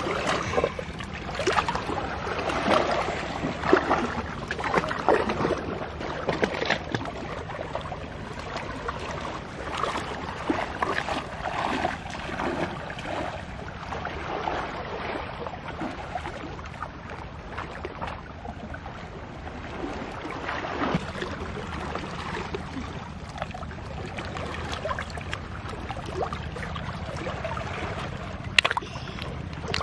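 Shallow seawater sloshing and splashing around rocks as people wade through it, with scattered sharp clicks. A loud click comes near the end.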